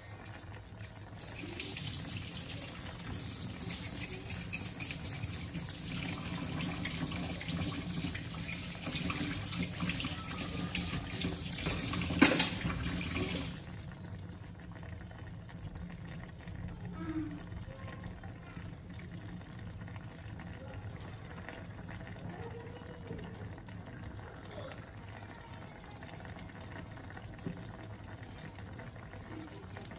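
Chicken and potatoes simmering in broth in a pan, bubbling softly. From about a second in until about halfway through, a louder steady rush of running water sounds over it, with a sharp clunk just before it stops suddenly.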